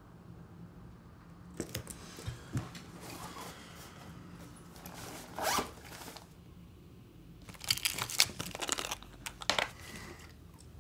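A plastic pill bottle being handled and opened: scattered clicks and rattles, a short scrape about halfway through, and a dense run of clicks and rattles at about eight seconds, the loudest part.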